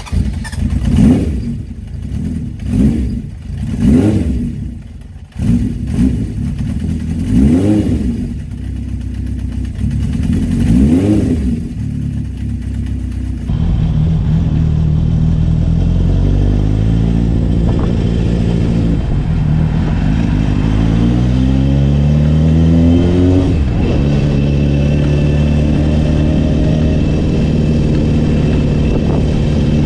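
Honda CB750 K0's air-cooled inline-four through a Delkevic stainless 4-into-1 megaphone exhaust. It is first blipped several times from idle. About halfway through it is under way, its pitch climbing in steps through a few gear changes before it settles to a steady cruise.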